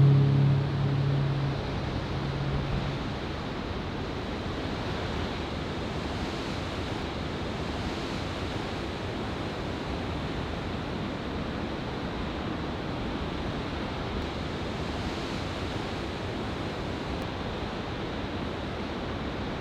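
Ocean surf washing steadily, with no single wave crash standing out. The tail of background music fades away in the first few seconds.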